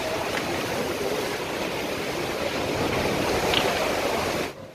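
Steady rush of surf echoing through a sea cave, cutting off abruptly near the end.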